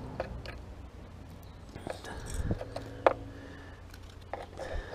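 Small plastic clicks and scrapes from a Rover SD1 hazard warning switch being prised apart by hand, with one sharper click about three seconds in, over a steady low rumble.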